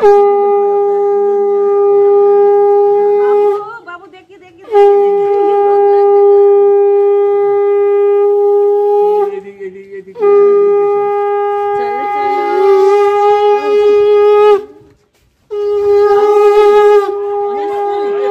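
Conch shell (shankha) blown in four long, steady blasts of about four seconds each, with short pauses for breath between them; each blast sags slightly in pitch as it ends. A wavering higher sound joins the third and fourth blasts.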